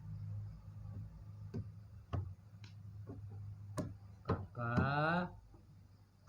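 A pet parrot gives a short pitched call about three-quarters of the way through, lasting about half a second. Before it come scattered small clicks and taps over a low steady hum.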